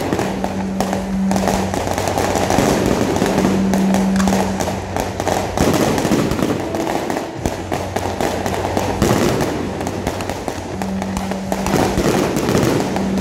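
Aerial fireworks display: shells bursting and crackling overhead in quick, overlapping succession.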